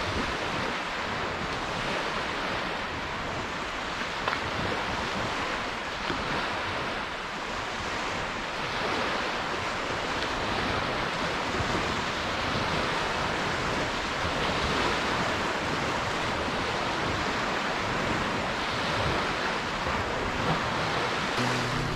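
Small Chesapeake Bay waves breaking and washing up on a sandy beach, a steady surf. Music comes in at the very end.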